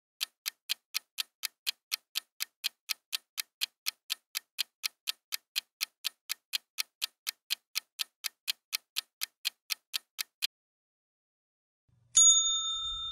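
Countdown timer sound effect: clock ticking fast and evenly, about four ticks a second, for about ten seconds. After a short gap, a bright chime rings out and slowly fades, signalling that time is up.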